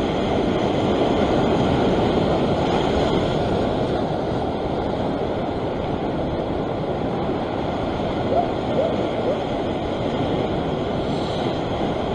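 Ocean surf surging and washing over the rocks at the water's edge: a steady, heavy rush of water, with wind on the microphone.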